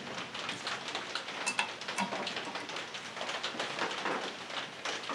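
Irregular light metallic clicks and taps of a disc brake caliper and its mounting hardware being handled and fitted by hand onto a Dana 44 knuckle, with one sharper click about a second and a half in.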